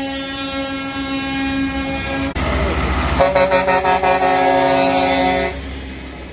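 Semi-truck air horns on passing race-team haulers: one long, steady horn blast that cuts off suddenly about two seconds in, then, after a moment of truck engine noise, a second long horn blast from about three seconds in that stops shortly before the end.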